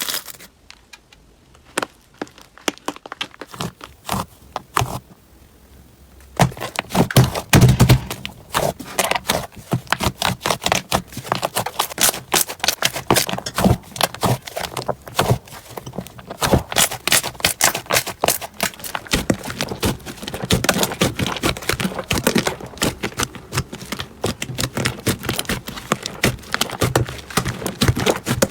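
Slime being squeezed and pressed by hand, giving rapid crackling and popping clicks. It is sparse and quiet for the first several seconds, then turns into a dense, continuous crackle.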